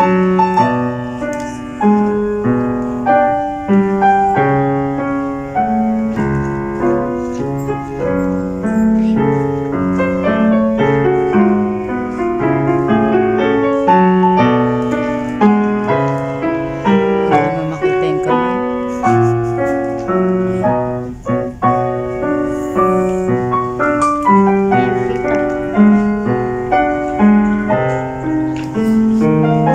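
Steinway grand piano played solo: a continuous flow of quick, evenly paced notes, with a brief dip in loudness about two-thirds of the way through.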